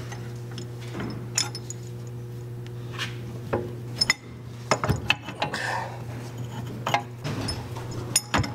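Steel press cups and a C-frame ball joint press clinking and knocking against each other and the wheel carrier as the press is set up over a new rear ball joint. The sharp metallic clinks come irregularly, most often in the second half.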